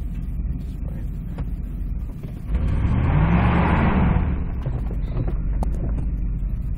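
Vehicle engine heard from inside the cab, running with a low rumble, then revving up and back down for about two seconds near the middle along with a rushing hiss.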